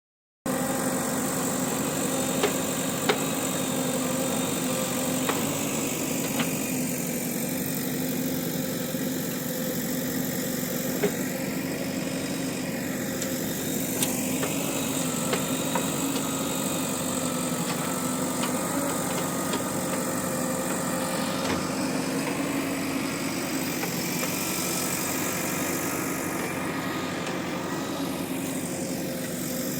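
JCB backhoe loader's diesel engine running steadily at a constant speed, with a few faint clicks and knocks.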